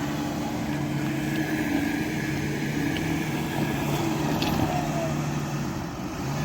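Four-wheel-drive engine running steadily under load, with a low, even drone, as a bogged car and caravan are towed out.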